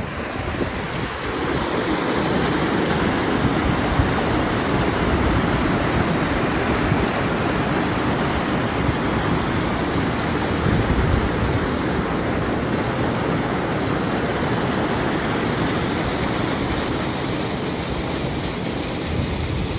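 Waterfall: creek water rushing over worn limestone ledges into a pool, a steady, loud rush.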